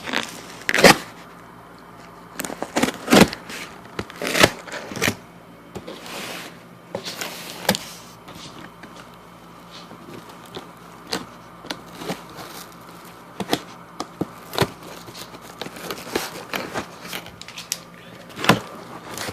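A box cutter slits the packing tape on a cardboard shipping box, with irregular clicks, scrapes and knocks as the cardboard is cut and handled.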